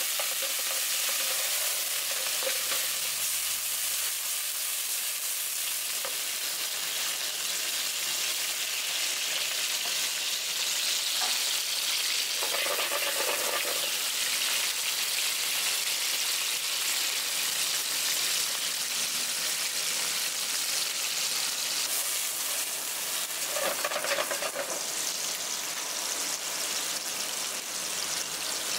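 Baby crabs, garlic and scallion pieces frying in hot oil in a nonstick pan: a steady sizzle, with two brief louder spells near the middle and about three-quarters of the way through.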